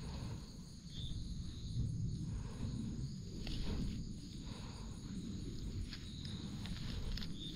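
Woodland insects droning in a steady high tone, with a few short high chirps and scattered faint clicks and crackles over a low rumble.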